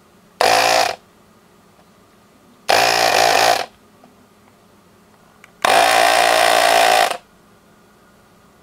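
Electric desoldering gun's built-in vacuum pump buzzing in three bursts: a short one, then one of about a second, then one of about a second and a half. It is sucking melted solder from the through-hole joints of electrolytic capacitors on a circuit board.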